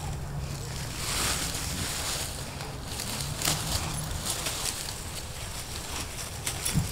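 Dry fallen leaves and grass rustling and crackling in bursts as a big dog rolls and wriggles on its back on them, starting about a second in. A steady low rumble runs underneath.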